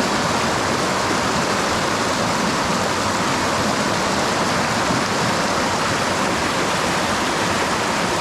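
Swift white water rushing steadily over rocks in a stream, a loud, unbroken roar that does not change.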